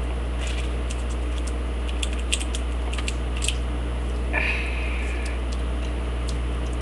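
Small irregular metallic clicks and ticks of a lock pick and tension wrench being worked and wiggled in a lock, with a short squeak about four and a half seconds in, over a steady low electrical hum.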